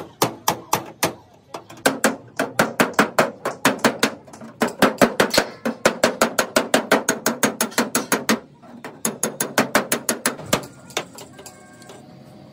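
Hammer blows on the dented edge of a steel car bonnet, struck against a steel bar held behind it to straighten the panel. Fast, regular metallic strikes, about four a second, with two brief pauses, stopping about ten seconds in.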